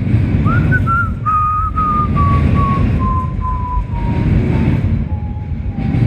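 CSX intermodal freight train of well cars rolling past with a steady low rumble. Over it, a single thin high squeal starts about half a second in and slides slowly down in pitch.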